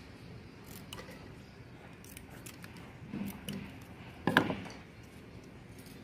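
Scattered small snips and clicks of scissors with handling noise while a ceiling-fan motor stator is rewound, and a louder clack about four and a half seconds in.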